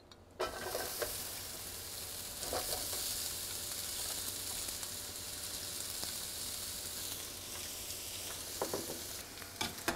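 Sliced onions sizzling in hot oil in a frying pan as they are dropped in by hand. The sizzle starts suddenly about half a second in, grows louder a couple of seconds later as more onion goes in, then runs on steadily.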